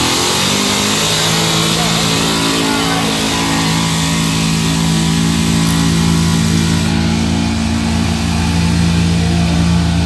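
Small-block V8 engine of a full-size SUV at full throttle under heavy load as it drags a weight-transfer pulling sled; the engine note climbs in the first half-second, then holds steady at high revs.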